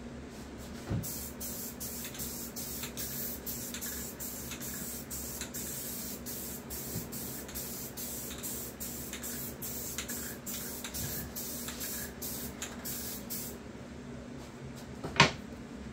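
Aerosol spray can applying a protective finish coat in rapid short hissing bursts for about twelve seconds, then stopping. A single sharp knock, the loudest sound, comes near the end.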